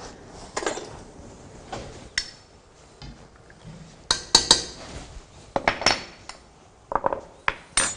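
A metal spoon and utensils clinking against a cooking pot: a run of sharp separate clinks, most of them between about four and six seconds in and again near the end.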